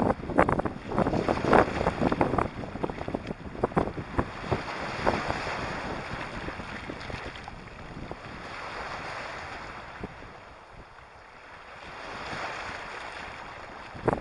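Small waves washing in over a pebble and sand beach, with a dense crackle in the first few seconds, then softer surges of water around the middle and near the end. Wind is on the microphone.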